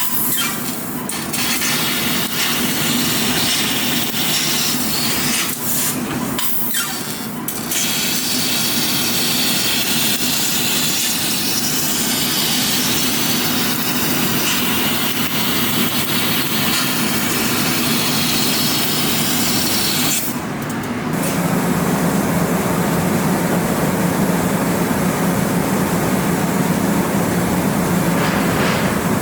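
High-power fiber laser cutting machine cutting thick carbon steel plate: a steady, loud hiss with a low hum underneath. The hiss drops out briefly a few times, about a second in, around six to seven seconds in and around twenty seconds in, and after the last break it is softer while the hum is stronger.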